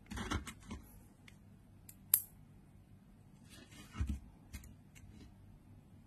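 Small parts of a disassembled fidget slider clicking and rattling against each other and the tabletop as they are picked up and handled. There is a sharp click about two seconds in, and another cluster of clicks around four seconds.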